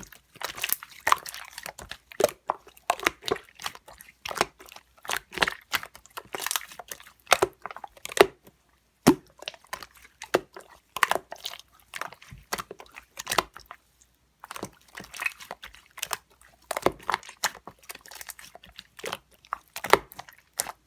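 Mint-coloured slime squished and pressed by hand, making irregular sticky clicks, pops and crackles, with a short pause about 14 seconds in.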